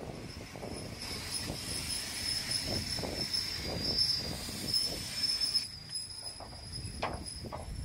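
Passenger train's wheels squealing in a thin, steady, high-pitched tone as the train rolls slowly almost to a halt along the platform, with irregular low knocks and clanks from the running gear. The squeal cuts off abruptly about two-thirds of the way in.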